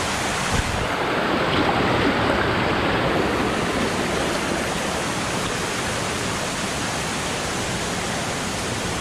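Stream water rushing steadily over rock slabs and small cascades.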